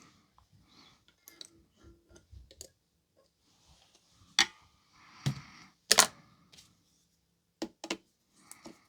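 Sharp clicks and light knocks of small hand tools being picked up and handled on a workbench, with a loud pair of clicks about six seconds in.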